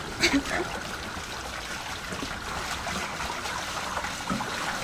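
Water trickling and lapping steadily along a sailing catamaran's hulls beneath the bow trampoline, moving slowly under sail.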